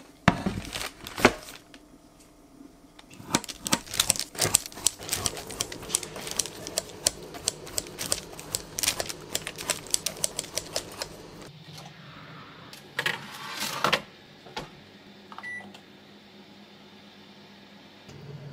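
Quick clicking and snipping as bacon-filled bread dough is cut into épi shapes on a parchment-lined baking tray. A few sharp knocks of the tray come first, and a brief rustle follows later on.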